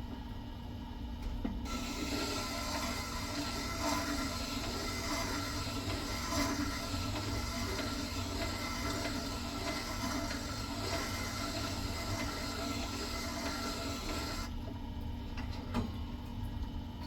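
Slow-turning wet sharpening stone running with a steady motor hum; about two seconds in, a steel chisel is pressed onto the wet grindstone and grinds with a steady hiss, which stops a few seconds before the end.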